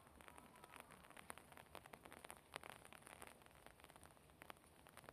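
Near silence: faint outdoor ambience with scattered soft ticks at irregular moments.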